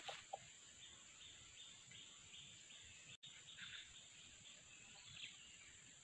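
Near silence: faint outdoor ambience with a steady high insect drone, a faint run of short high chirps a few times a second in the first half, and a brief faint bird-like call about five seconds in.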